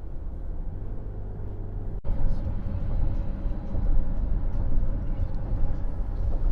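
Car on the move: a steady low engine and road rumble, with a brief break about two seconds in where the footage is cut.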